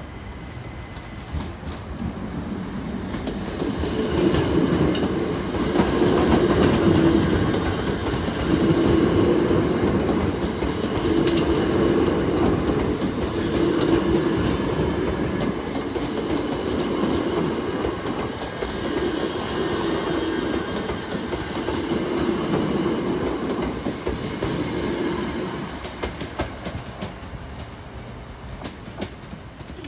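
Southern Class 377 electric multiple unit passing close by, its wheels rumbling and clicking on the rails. The noise swells every two seconds or so and fades over the last few seconds as the train draws away.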